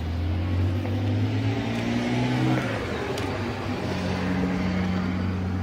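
Street traffic: motor vehicle engines running steadily, with one engine's tone sliding gently down in pitch in the first half and another steady tone joining about four seconds in.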